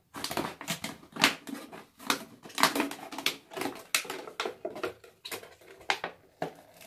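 A knife sawing around a brown plastic PET bottle, the thin plastic crackling in quick, irregular clicks as it is cut and flexed.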